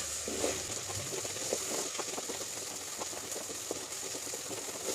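Onions, garlic and ginger sautéing in hot oil in a pan: a steady sizzle with scattered short crackles and ticks as the mixture is stirred.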